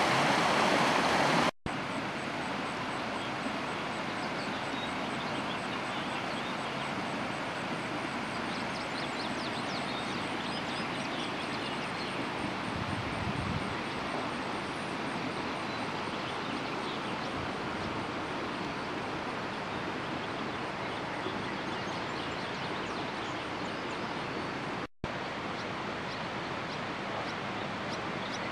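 Muddy floodwater rushing down a swollen creek for the first second or so, then a cut to a quieter, steady outdoor hiss with faint high chirping; another brief cut near the end.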